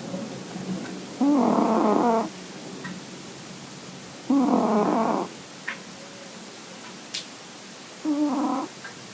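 A sleeping cat snoring: three loud, pitched snores about three seconds apart, each lasting about a second, with a quieter hum of breathing between them.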